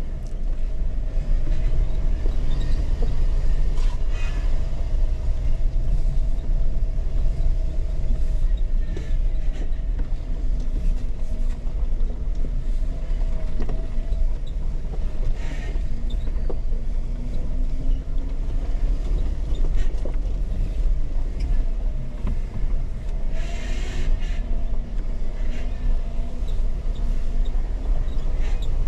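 Jeep engine running at low speed as it crawls along a rocky mountain trail: a steady low rumble with scattered knocks and rattles. A louder burst of noise comes about 24 seconds in.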